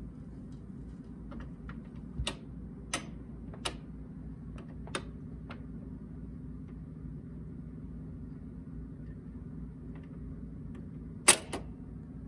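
Garrard 1025T record changer running with a steady low hum, with scattered light clicks through the first half and a sharper double click near the end.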